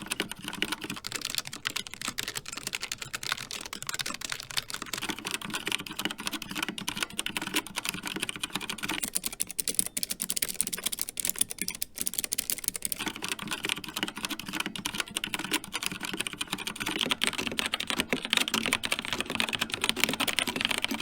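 Steady typing on a run of mechanical keyboards in turn: a Logitech G915 with low-profile GL Linear Red switches, then a Keychron K3 with Keychron Optical Blue clicky switches from about 9 seconds in, then an Xtrfy K4 with Kailh Red linear switches for the last few seconds. The key strokes run continuously, with the sound changing character at each keyboard change.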